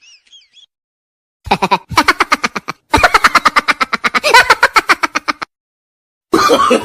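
A comedy sound effect: two bursts of rapid pitched pulses, about ten a second, a short one and then a longer one of about two and a half seconds, each stopping abruptly.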